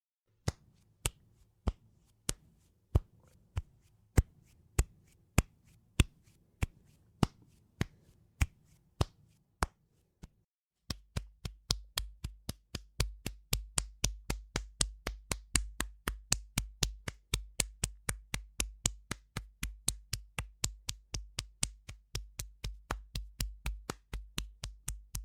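Barefoot footsteps, sound-effect recordings. First comes a slow, even walk of single slapping steps, about two a second. After a short silence about ten seconds in, a quicker run of steps follows, about three a second, each with a low thud.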